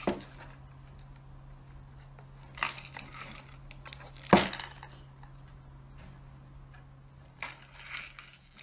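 A cat pawing and tipping a small paper box on a wooden tabletop: soft rustles and scrapes, with one sharp knock about four seconds in, over a faint steady hum.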